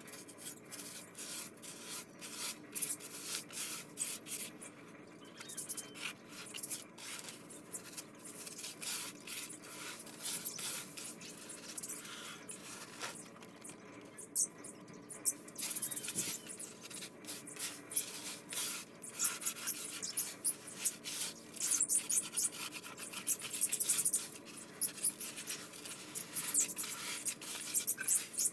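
Fingers pressing, scraping and crumbling a damp, gritty mix in a tub: a crunchy, crackling rub of grit against fingers and the tub wall, busier and louder in the second half.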